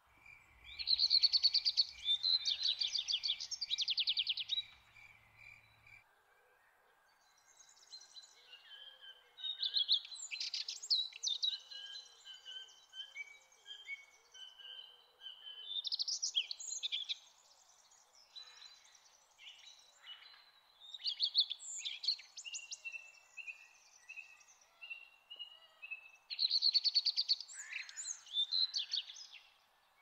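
Songbirds singing in a forest: bursts of quick trills and chirps every few seconds, the loudest at the start and near the end, over a faint steady background hiss.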